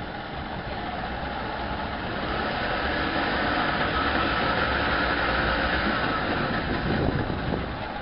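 A steady motor noise that swells over the first few seconds, holds, and eases off near the end.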